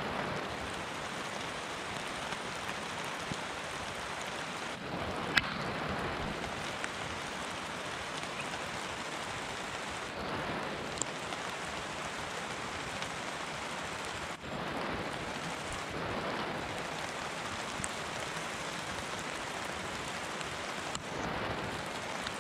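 Steady rain falling in a forest, an even hiss throughout, with one sharp tap about five seconds in and a few fainter ticks.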